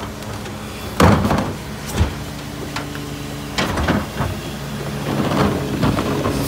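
Rear-loader garbage truck idling while a wheeled trash cart is dumped by the cart tipper: a loud bang about a second in, another a second later, then more clatter as the cart is lowered back down around four seconds in.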